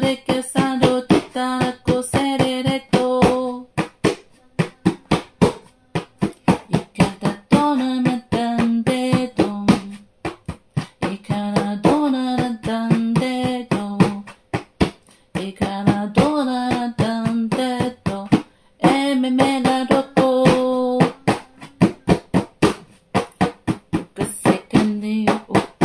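A voice singing in tongues (glossolalia), chanting run-together syllables on a few steady held pitches in short phrases with pauses. A steady fast rhythm of sharp taps, about four a second, runs beneath it and carries on through the pauses.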